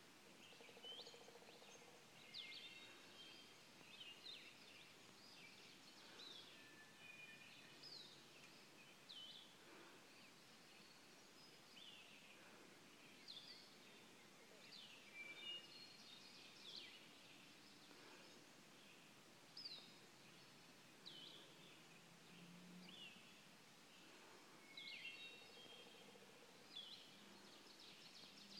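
Faint morning chorus of several songbirds: overlapping chirps, quick downward-sweeping notes and short trills, a call every second or so.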